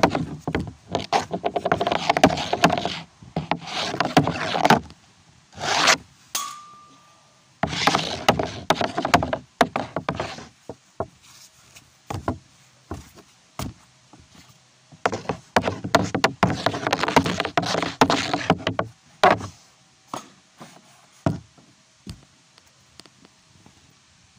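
Hockey stick and pucks clacking on a wooden shooting board: several bursts of rapid knocks a few seconds long, with scattered single knocks between.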